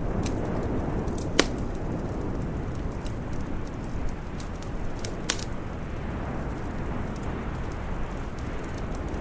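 Wood fire crackling in a fireplace, scattered small pops over a steady low rumble, with two sharper pops about a second and a half in and about five seconds in.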